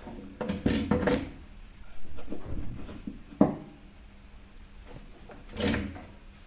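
Knocks, clicks and rubbing from tools and parts being handled on a workbench during soldering, with a sharp click about three and a half seconds in.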